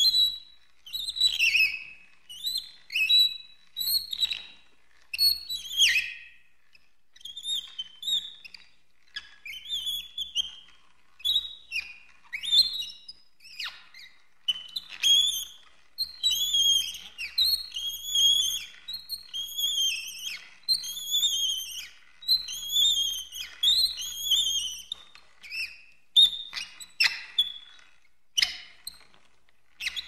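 Squeaky cartoon voice effects of a cement-mixer character: a string of short, high-pitched chirps and squeaks, many arching or falling in pitch. Around the middle they come as a quicker, evenly spaced run.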